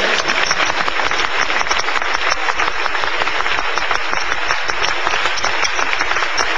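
Audience applauding steadily in a hall, many hands clapping for the newly announced world champion.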